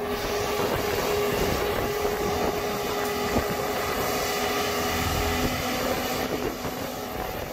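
Marine travel lift's engine running steadily, with a steady whine that shifts lower in pitch about five seconds in.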